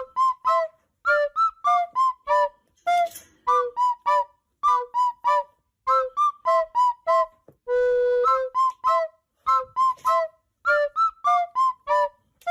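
A whistled, flute-like melody of short, quick notes in a steady rhythm, with one longer held note about eight seconds in.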